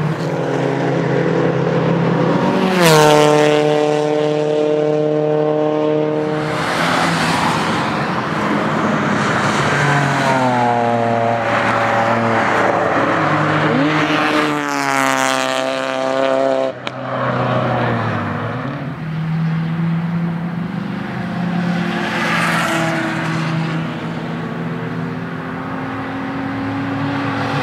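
Track-day cars' engines revving hard, the note climbing through the revs and dropping sharply at gear changes, as cars pass one after another. Tyres squeal as a car slides sideways.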